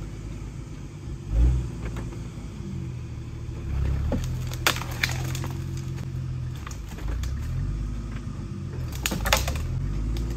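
Jeep Grand Cherokee ZJ engine running at low trail speed, its pitch shifting up and down. There is a low thump about a second and a half in, and a few sharp knocks around halfway and near the end.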